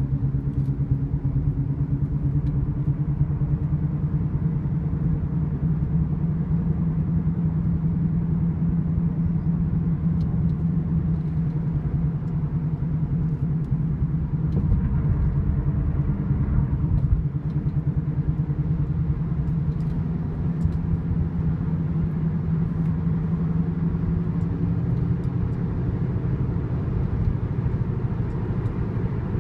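2008 Honda Accord driving, with a steady low whirring drone over the road rumble. The owner cannot tell whether it comes from a wheel bearing, wheel alignment, an out-of-balance tire or unevenly worn tires.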